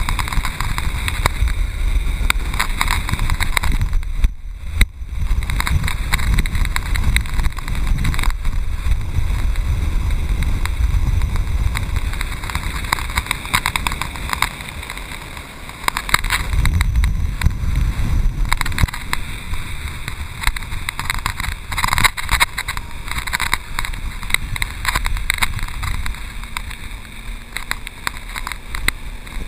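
Wind buffeting the action camera's microphone and water rushing and splashing under an inflatable tube towed behind a motorboat, with irregular slaps as it crosses the wake. It drops briefly about four seconds in.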